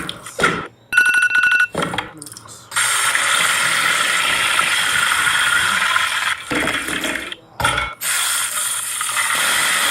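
A few clicks and a short ratcheting rattle, then from about three seconds in a steady sizzling of chicken pieces frying in hot oil, which dips briefly about two-thirds of the way through and then resumes.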